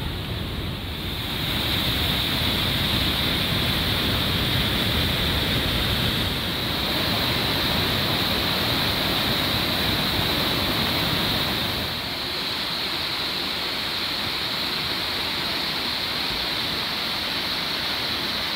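Maligne River whitewater rushing through rapids in a rock canyon, a steady noise of churning water. It gets louder about a second in and eases off a little around two-thirds of the way through.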